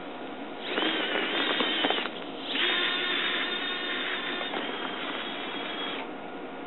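Modified hobby servos used as drive motors on a homemade RC tracked vehicle, running with a high gear whine as the tracks drive over carpet. It comes in two runs: a short one of about a second and a half starting just under a second in, then a longer one of about three and a half seconds.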